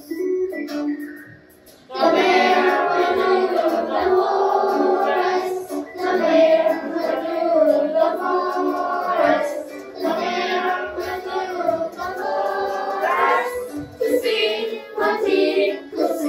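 A group of children singing a song together, muffled by their face masks, with the singing coming in fully about two seconds in.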